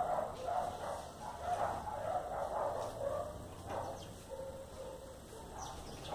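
Short animal calls repeating irregularly, about two or three a second, growing fainter in the second half.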